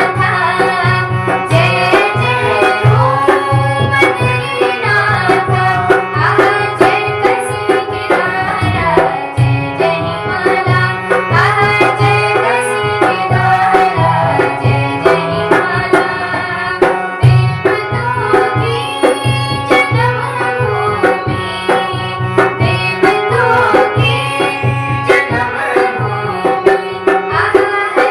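Devotional song music driven by a steady hand-drum rhythm of tabla-style strokes, with a melody line gliding over it.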